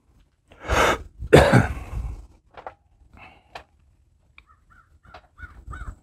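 A man coughing or clearing his throat twice in quick succession, followed by a few faint clicks and small handling sounds.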